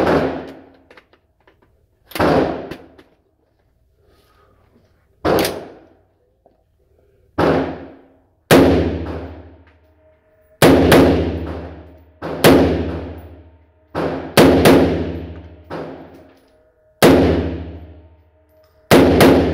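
AR-15-style rifle firing about fourteen shots at an irregular pace, several as quick doubles. Each report rings out for about a second in an indoor shooting lane.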